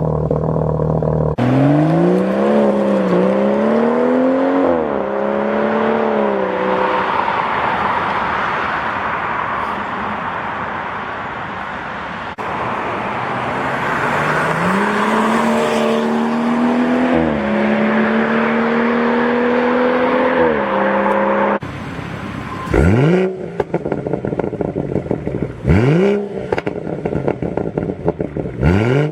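BMW M140i's turbocharged straight-six through an Akrapovic exhaust, accelerating with the pitch rising and dropping as it shifts gear. Near the end it is revved sharply three times, with crackles and pops between the revs.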